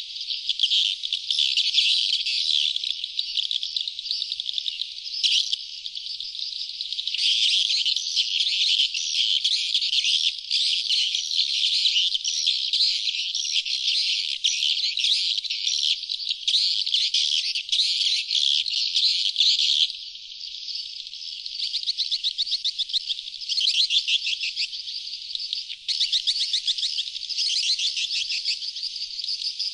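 Sriti swiftlet calls played as a lure track for attracting wild swiftlets: a dense, continuous chorus of rapid, high, twittering chirps, briefly thinning about two-thirds of the way in.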